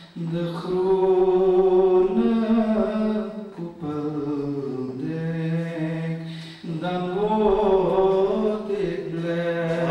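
A man singing a naat in Dutch, solo and unaccompanied, in long chanted phrases with held notes, pausing briefly for breath twice.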